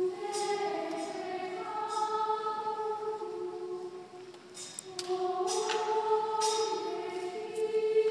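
Choir singing Gregorian chant in long held notes, stepping from pitch to pitch, with a brief dip in the singing about four seconds in.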